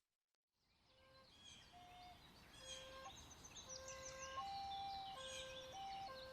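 Birdsong fades in after a brief silence: many quick high chirps and twitters. Under it runs a slow melody of long held notes stepping back and forth between two pitches, a soundtrack tune over the birds.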